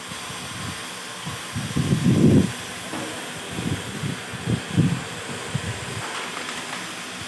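Steady hiss of steam from a wood-fired steam boiler, with irregular low rumbling swells, the loudest about two seconds in.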